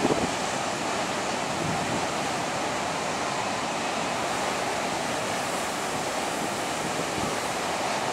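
Heavy storm surf breaking continuously: a steady wash of noise, with strong wind blowing across the microphone and a brief louder gust right at the start.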